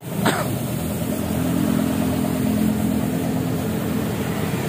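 Yamaha XMAX 250's single-cylinder four-stroke engine idling steadily through its hollowed-out stock muffler, fitted on a new stainless slip-on header pipe.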